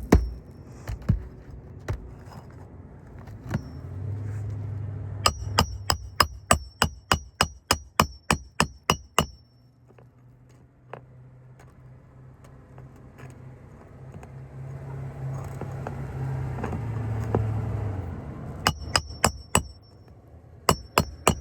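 Hammer driving roofing nails into shingles. There is a quick run of about fifteen ringing strikes, then two short runs of three or four strikes near the end, over a low steady hum.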